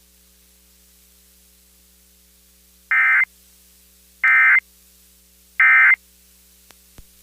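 Emergency Alert System end-of-message data bursts: three short, identical bursts of rapid two-tone digital warble (the EAS 'NNNN' code), each about a third of a second and spaced about 1.3 s apart, signalling the end of the alert. They come after about three seconds of faint steady line hum, and a couple of faint clicks follow near the end.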